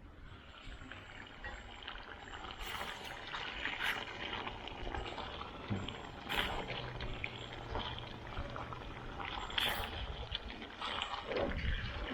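Chicken masala sizzling and bubbling in a pan over a high-BTU burner, a steady hiss with a few sharp clicks of a utensil against the pan.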